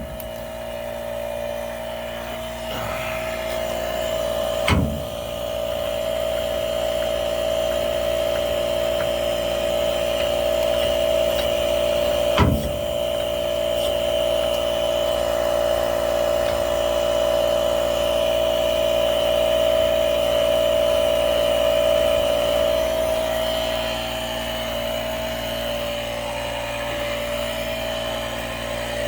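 Air compressor running steadily as the tyres are pumped up, a high, even hum, with two sharp knocks about five and twelve seconds in.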